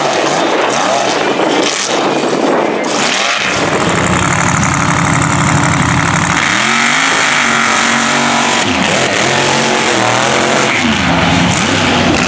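Mega truck engines revving hard, the pitch sweeping up and down again and again. A little over three seconds in, a second truck's engine takes over, with a steadier note broken by repeated rises and falls in revs.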